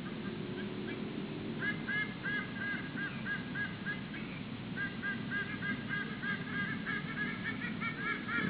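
White-bellied sea eagle pair duetting, a rapid goose-like honking. The honks start about one and a half seconds in, break off for a moment around four seconds, then resume. Two overlapping series of honks grow louder toward the end.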